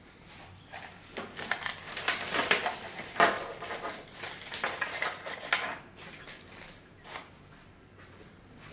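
Rustling and light clattering of packaging and a plastic-framed car stereo head unit being handled on a foam sheet, in dense bursts that stop about six seconds in, with one more small knock near seven seconds.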